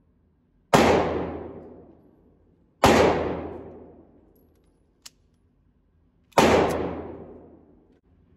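Three gunshots from a pistol, fired inside an indoor shooting range, each with a long echoing decay. The second comes about two seconds after the first and the third about three and a half seconds later, with a faint click between them.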